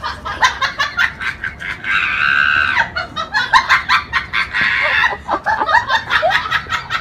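A person laughing in quick, choppy bursts, with a longer drawn-out stretch about two seconds in.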